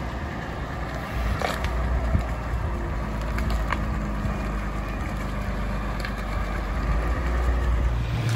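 Wheel loader's diesel engine running as the machine drives with a rusted car body lifted on its forks, with a steady low rumble and scattered clanks and creaks of loose sheet metal.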